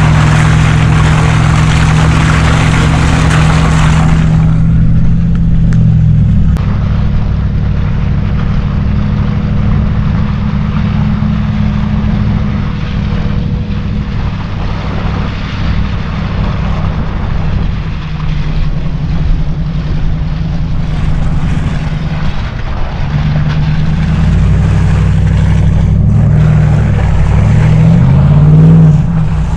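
Truck engine running under light throttle on a slippery trail. Its note drops about five seconds in, then it revs up and back down near the end.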